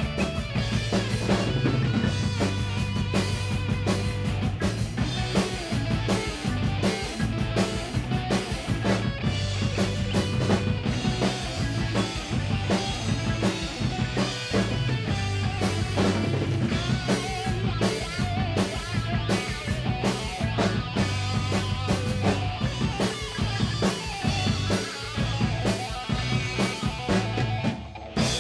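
Acoustic drum kit played in a fast, busy pattern of snare, bass drum, tom and cymbal hits, along with a recorded instrumental track that carries a steady bass line.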